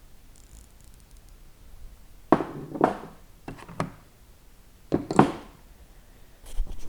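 Hand tools being handled and set down: three short clusters of knocks and clunks, each a second or so apart.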